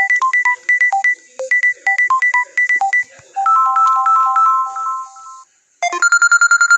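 Samsung Galaxy A71 ringtones playing one after another. The first is a tune of quick short repeated notes that moves into a few held notes and stops about five seconds in. After a brief pause a second ringtone starts with fast repeated notes on one pitch.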